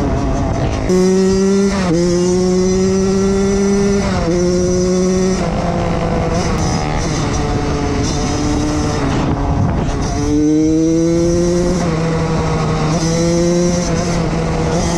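Koshine XN 105 pit bike's single-cylinder engine revving hard under acceleration, shifting up again and again. Its note climbs in each gear and drops at each shift, sags for a few seconds in the middle as the throttle eases, then climbs again. Wind rushes over the handlebar camera's microphone throughout.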